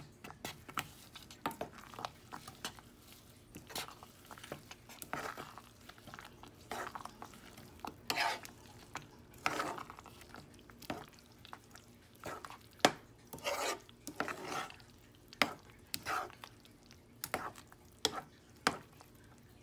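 Metal spoon stirring thick curry and fresh greens in a stainless steel saucepan: irregular wet scraping strokes and clicks of the spoon against the pan, some strokes louder than others.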